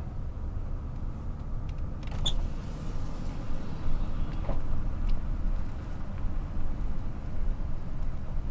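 Steady low road rumble of a car driving on a paved road, heard from inside the cabin.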